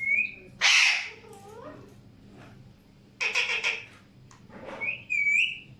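Alexandrine parakeets calling: a short whistle, then a loud harsh screech just before a second in. Squawks follow about three seconds in, and a clear whistle comes near the end.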